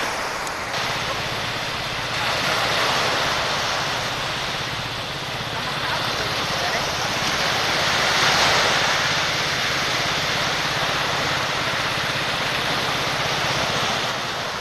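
Small engine of a bancarera, a light racing outrigger boat, running steadily on the water. Loud wind noise and surf wash over it.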